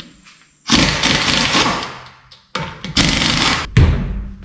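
Pneumatic impact wrench running against the lug nuts of a truck's front wheel to spin them off, in three loud bursts: two of about a second each, then a short heavier one.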